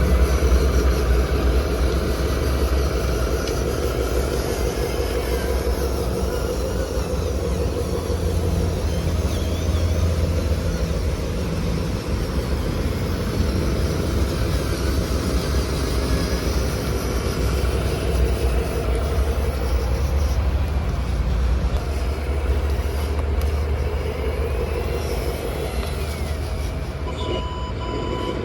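Steady diesel-style engine rumble from RC construction models, pulsing evenly like a working truck engine. A steady high beep tone comes in near the end.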